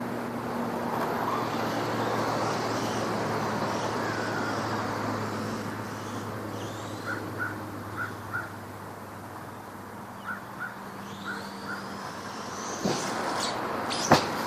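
Electric RC truck with a brushless motor driving off across grass, its motor and drivetrain hum slowly fading. Near the end it comes back with a rising motor whine and two sharp knocks, the second the louder.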